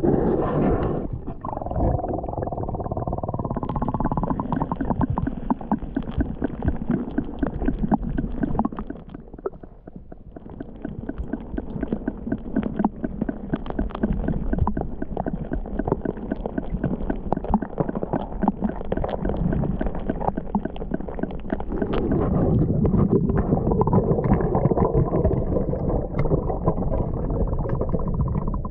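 Muffled gurgling and sloshing of water around a camera held underwater in a flooded mine adit, full of small crackling knocks. It dips quieter about nine seconds in, then builds again.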